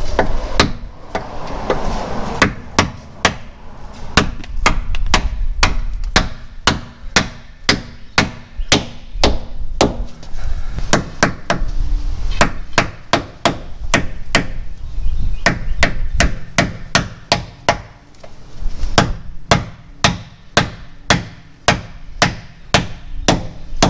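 Rubber mallet striking metal again and again, about two blows a second with short pauses, pounding a RockJock AntiRock sway bar part into its mount as an interference fit.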